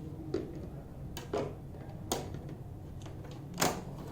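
Short plastic clicks and knocks, about five spread over a few seconds, the loudest near the end, as the pre-filter is fitted back into the Coway AP-0509 air purifier and its clips are hooked in.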